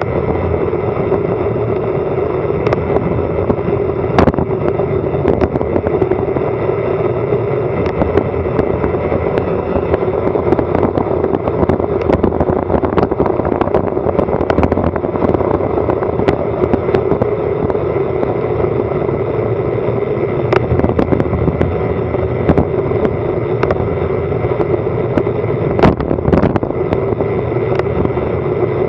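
Wind rushing over an action camera's microphone on a fast bicycle descent, a steady loud rush. Sharp clicks and knocks come irregularly throughout, from the bike jolting over the road surface.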